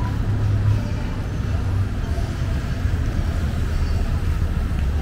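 City street traffic: a steady low rumble of engines and tyres from passing cars and buses.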